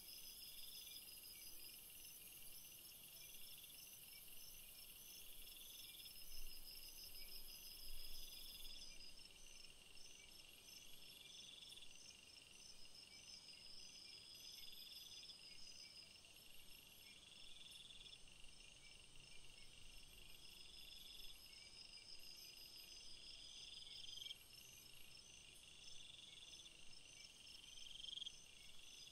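Faint chorus of chirping insects: one repeats a short call about every two seconds, another keeps up a fast pulsing trill. A high steady hiss runs underneath and cuts off about nine seconds in.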